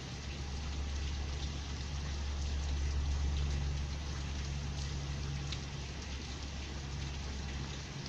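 Heavy rain pouring down steadily, with scattered drop ticks and a low rumble underneath that swells a little about three seconds in.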